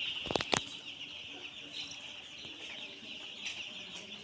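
A flock of young broiler chicks peeping together in a steady, high chatter. Two sharp clicks come just after the start.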